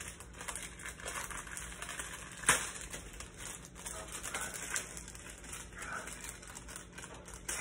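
A refrigerated dough tube being opened by hand: its paper wrapper crinkling and small taps and clicks, with one sharp crack about two and a half seconds in.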